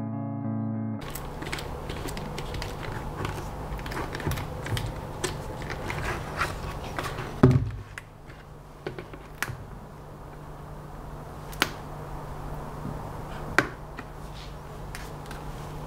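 Small clicks and rattles of an LED strip and a plastic bucket being handled, with a few sharper clicks, the loudest about seven and a half seconds in, over a steady low hum.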